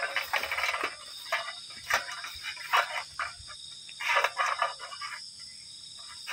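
Night chorus of insects: a steady high, shrill trill of crickets, with short, irregular rustling sounds coming and going over it.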